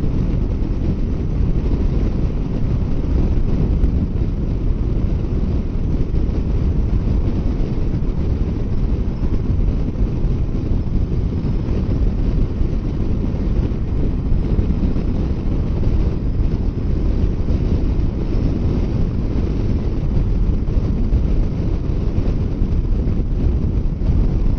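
Steady wind rushing over the microphone of a motorcycle riding at highway speed, a constant low rumble with no breaks.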